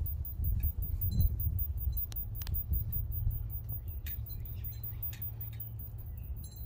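Low, uneven rumble of wind on the microphone, with a few faint scattered light clicks and ticks.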